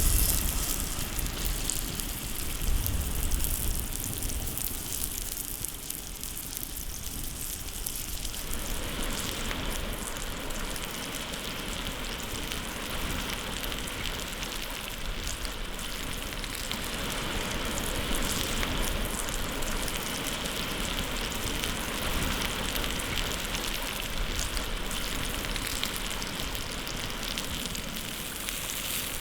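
Food sizzling and crackling as it fries in hot oil, a steady hiss with fine pops that fills out about eight seconds in.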